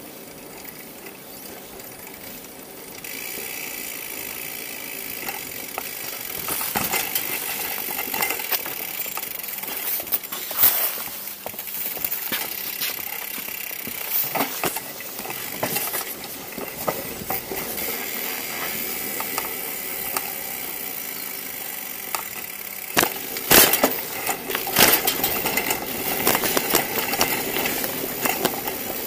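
Bicycle being ridden, its parts rattling and knocking over bumps at irregular moments, with the loudest knocks a little past two thirds of the way through, over a steady hiss.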